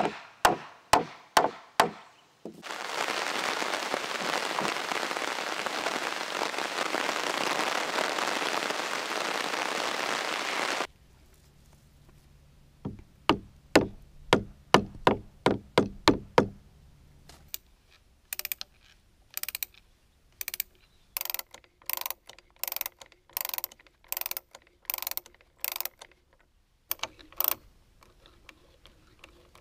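A wooden mallet knocks on oak sill timbers, a few sharp blows at the start and a quick run of knocks in the middle. Between them comes a loud steady hiss lasting about eight seconds. A hand brace then bores into the oak, its clicking strokes coming in a steady rhythm a little over one a second.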